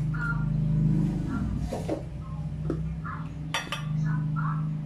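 Dishes and cutlery clinking a few times as tableware is handled, over a steady low hum.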